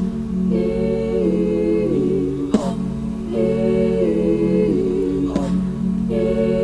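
Women's a cappella group humming wordless chords over a sustained low drone. The upper voices step through a short chord pattern that repeats about every three seconds, and a sharp percussive hit lands near the end of each pass.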